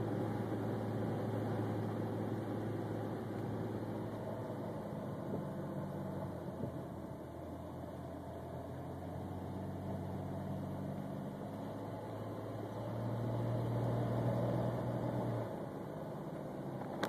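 Chrysler Voyager's 3.3-litre V6 engine running under way with road noise, heard from inside the cabin. The engine note shifts in pitch several times, grows louder about three-quarters of the way through, then drops suddenly.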